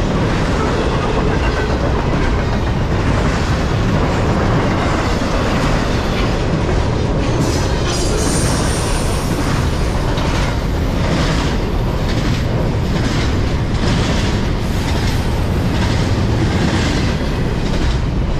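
Double-stack intermodal well cars of a Norfolk Southern freight train rolling past at about 50 mph: a loud, steady rumble of steel wheels on rail with repeated clickety-clack as the trucks pass over rail joints. The clacks are most distinct in the second half, and a brief faint high wheel squeal comes about eight seconds in.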